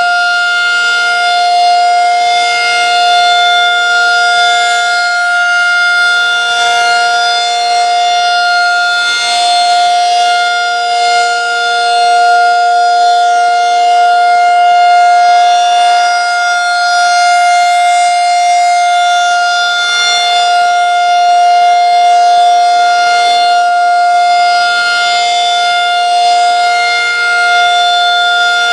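Federal Signal 2001-SRN rotating dual-tone tornado siren sounding a steady alert signal: a loud two-note chord held at constant pitch, swelling and fading slightly in loudness.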